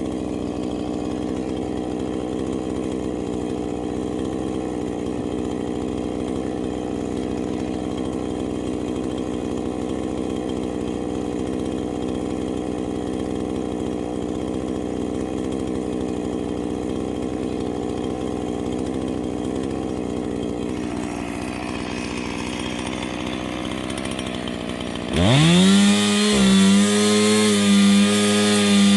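Two-stroke chainsaw idling steadily, then revved up sharply to full throttle near the end and held there, with a few brief dips in speed.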